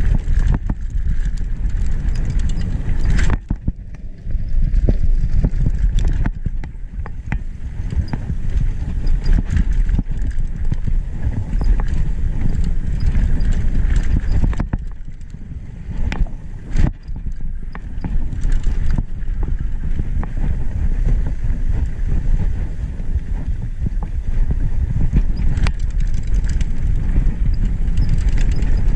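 Mountain bike riding fast downhill on a dirt trail, heard from a camera on the rider: a steady low rumble of tyres and wind on the microphone, with constant rattling and clicking from the bike over the bumps. It goes briefly quieter a few seconds in and again about halfway.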